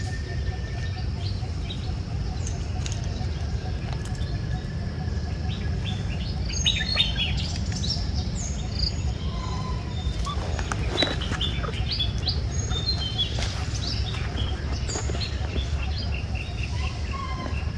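Short, high-pitched animal chirps and squeaks, scattered and busiest from about six to sixteen seconds in, over a steady low rumble.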